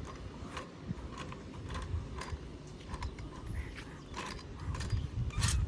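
Hand tool clicking in irregular metallic ticks, about two a second, as the bolts of a bicycle disc brake are loosened to take it apart, with low handling knocks underneath.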